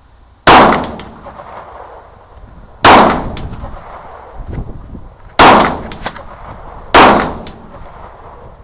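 Four loud gunshots fired one after another, about one and a half to two and a half seconds apart, each with a short ringing tail.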